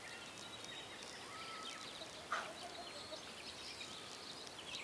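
Free-range hens clucking quietly as they walk, with one louder, short call a little over two seconds in, over faint high chirping.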